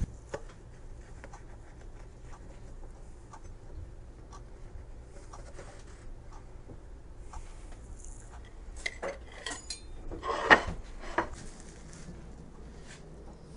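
Metal utensil scraping and clinking against a metal baking pan as baked cinnamon rolls are pried loose and lifted out, with scattered light clicks and a cluster of louder clanks, some briefly ringing, about nine to eleven seconds in.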